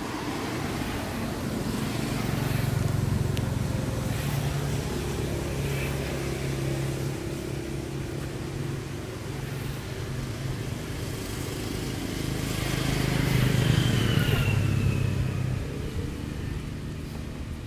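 Motor vehicles passing, their engine hum swelling twice: once about three seconds in and again near the end.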